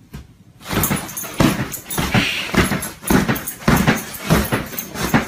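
A dog on a bed makes short, irregular sounds as it paws at the sheet, starting about a second in.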